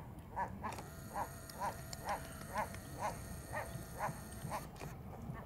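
A waterbird on the lake calling a steady series of short notes, about two a second, stopping near the end, over a low background rumble.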